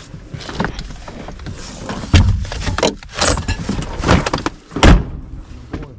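A run of irregular knocks and thumps with a low rumble under them, the loudest about two seconds and five seconds in.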